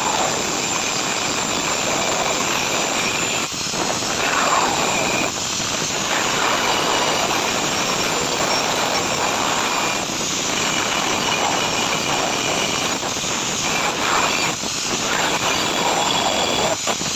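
Gas brazing torch flame hissing steadily as copper pipe is brazed onto a compressor, with a few brief dips in the noise.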